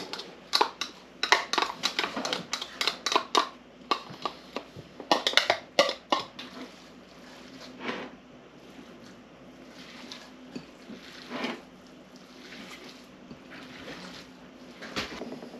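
Quick sharp tapping and scraping against the plastic bowl of a small hand chopper as minced onion is knocked out into a ceramic bowl, about three or four taps a second for six seconds. After that come quieter handling sounds and an occasional knock as ground beef is mixed by hand.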